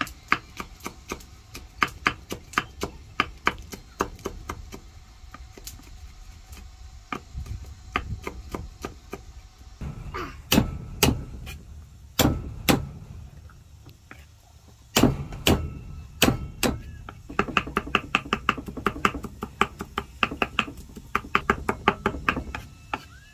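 Large knife chopping on a thick wooden chopping block, first a quick, even run of strokes mincing red chilies. Around the middle come a few heavier, single whacks as garlic cloves are crushed under the flat of the blade. Near the end fast, dense chopping returns as the garlic is minced.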